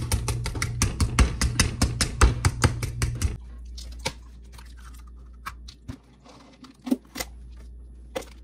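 Fork mashing avocado in a plastic bowl: quick clicking strokes, about six a second, that stop about three seconds in. After that come a few separate taps and knocks.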